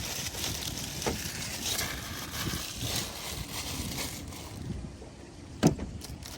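Wind buffeting the microphone with a steady rush, and a few handling knocks, the loudest a sharp one about five and a half seconds in.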